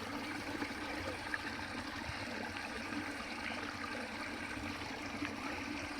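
Steady rushing of flowing water from a stream or river, with a few faint clicks over it.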